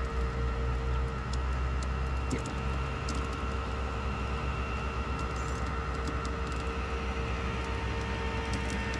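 A large truck engine idling steadily with a low pulsing rumble and a steady whine over it, and a few faint scattered ticks.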